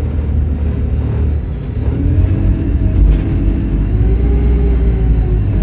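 Single-deck bus's diesel engine and driveline heard from the passenger saloon, accelerating: a steady low rumble, with the engine note climbing from about two seconds in and a faint high whine rising with it. A single sharp knock comes about three seconds in.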